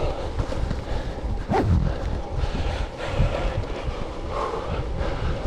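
Gusty wind buffeting the action camera's microphone: a low rumble that swells and drops with each gust.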